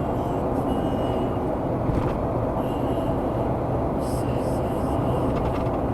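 Steady road and engine noise of a vehicle cruising at highway speed.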